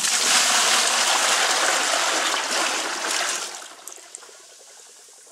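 Water pouring from a metal pot into a plastic tub over salt, mixing a salt brine for a hide pickle; a steady rush that starts suddenly and tapers off and stops about three and a half seconds in.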